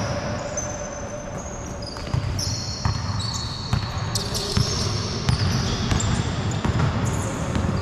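Basketball bouncing on an indoor court floor and players' sneakers squeaking in many short, high-pitched chirps, in a large echoing gymnasium.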